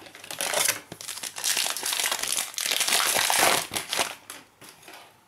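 Foil wrapper of a Prizm basketball card pack crinkling as it is taken from the box and handled. It starts about a third of a second in, is loudest in the middle and dies away after about four seconds.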